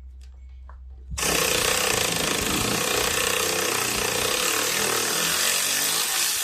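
Cordless power tool running hard on a valve cover bolt of a Briggs & Stratton riding-mower engine, starting about a second in and running steadily for about six seconds; its owner thinks the tool's battery is getting weak.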